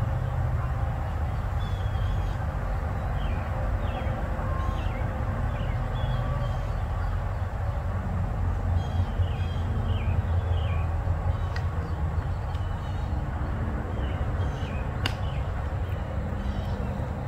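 Outdoor ambience: a steady low rumble with birds chirping in short falling notes throughout, and one sharp click about fifteen seconds in.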